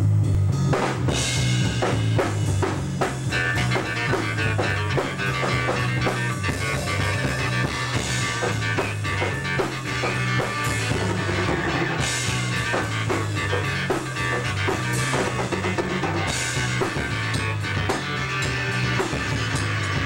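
Small rock band jamming: acoustic guitar strummed over a drum kit and electronic keyboard, with sustained low bass notes, steady drum beats and a cymbal crash every few seconds.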